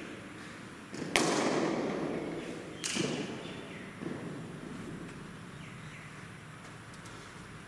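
Cricket ball struck by a bat with a sharp crack about a second in, the sound ringing on for a second or so. Two further thuds follow as the ball comes to rest.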